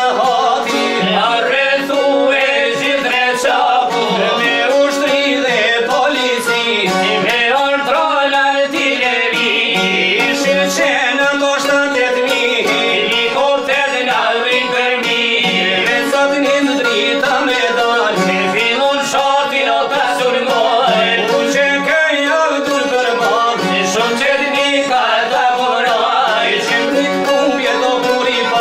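Albanian folk music: rapidly plucked long-necked lutes, çifteli and sharki, with a violin, and a man singing over them.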